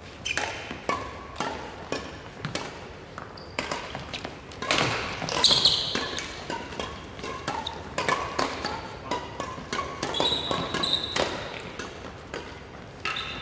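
Badminton rackets striking shuttlecocks: sharp, irregular hits from several games at once, now and then a few within a second. Short high squeaks of sports shoes on the wooden court come in between, most clearly about five and ten seconds in.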